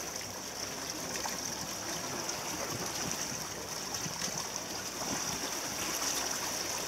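Sea water splashing and rushing steadily past the hull of a moving boat.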